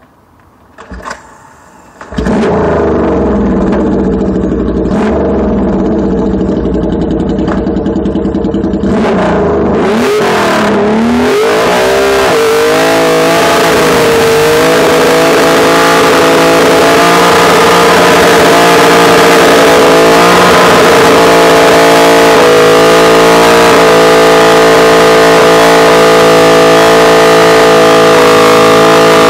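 Yamaha XS850 three-cylinder motorcycle engine starts about two seconds in, runs and revs up, then from about twelve seconds is held at high revs in a burnout. The rear tire spins on the pavement with a steady squeal and hiss, wearing down the old tire.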